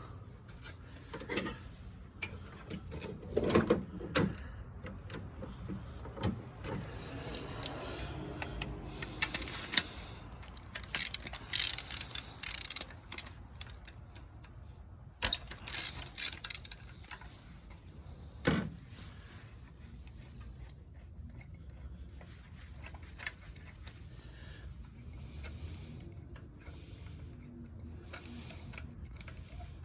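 Hand ratchet clicking in irregular spells as a spark plug is loosened and worked out of a car engine, with occasional sharp metal knocks of the tools.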